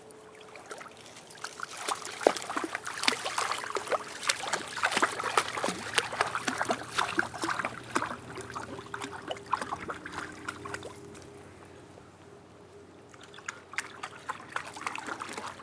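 Shallow lake water splashing and sloshing as a dog wades through it, in quick runs of short splashes. It quiets for a couple of seconds near the end, then picks up again.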